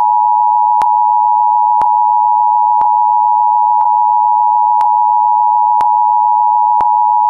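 Emergency Alert System attention signal: the two-tone alert (853 Hz and 960 Hz sounded together) held as one loud, steady, unbroken tone, announcing that an emergency message follows.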